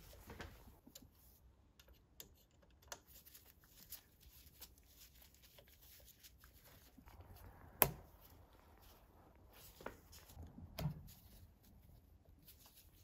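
Faint small clicks and taps of hand work on fuel injectors and an aluminium fuel rail, as a rail bolt is turned with a hex key and injector connectors are pushed on. The sharpest click comes about eight seconds in, with a few more near the end.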